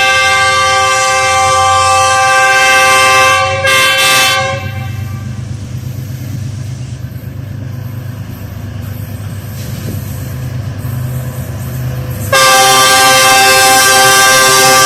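GEU-20 diesel-electric locomotive's horn sounding a long loud blast and a short second blast. The locomotive's engine and the train's running then rumble for about eight seconds. Near the end another long blast begins.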